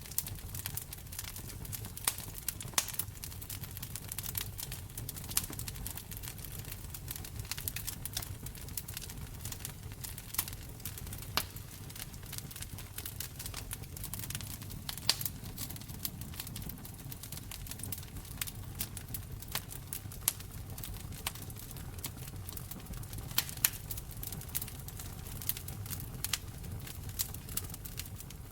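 Wood fire crackling: irregular sharp pops and snaps, some much louder than others, over a low steady rumble of the flames.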